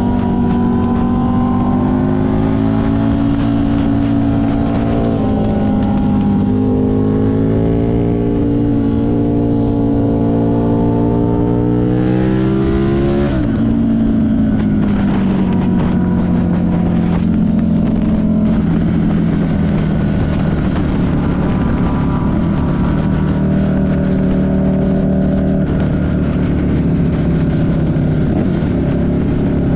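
Buell 1125CR's 1125 cc V-twin engine running under way on a ride. The revs climb slowly for about twelve seconds, fall quickly about thirteen seconds in, then hold steadier at lower revs.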